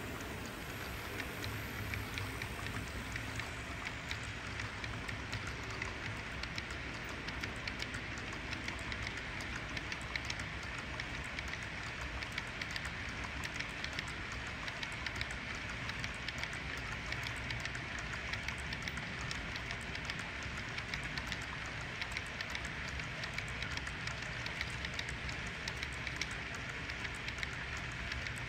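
HO scale model train cars rolling along the track, passenger cars and then refrigerator cars: a steady rattle of wheels on rail with many rapid light clicks.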